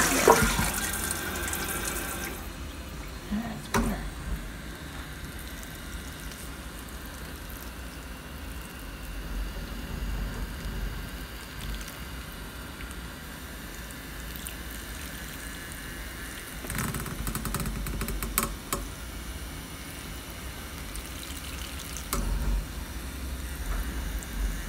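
Water running from a tap, shut off about two seconds in; then a small watering can's sprinkler head trickling water onto soil in small succulent pots, with a few light knocks as the can and pots are handled.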